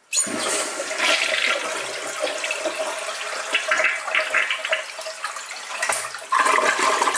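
Toilet flushing: water rushes and swirls around the bowl and drains away. It starts suddenly just after the start and grows louder again about six seconds in.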